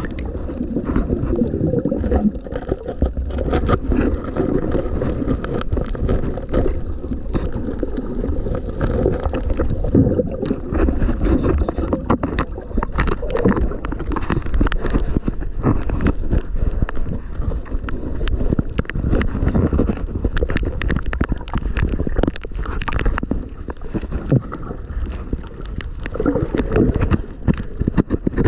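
Muffled underwater sound of water moving around a submerged camera, with bubbling and many small clicks and crackles throughout.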